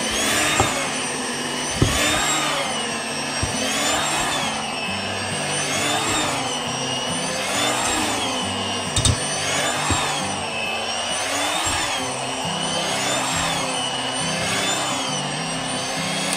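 An electric hand mixer with spiral dough hooks kneads stiff bread dough in a steel bowl. The motor's whine dips in pitch and recovers about every two seconds as the hooks labour through the dough, with a couple of short knocks. Background music plays underneath.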